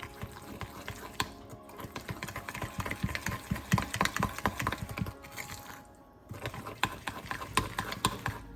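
A utensil clicking and scraping rapidly against a bowl as softened butter, brown sugar and cinnamon are stirred together into a cinnamon-roll filling. The strokes come thick and irregular, busiest in the middle, with a brief pause about six seconds in.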